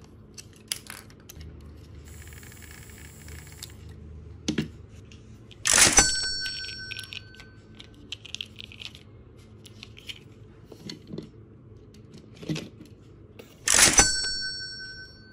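Hands handling a small plastic toy train and a screwdriver: scattered light clicks and taps, with two sharp clanks that ring briefly, about six seconds in and again near the end.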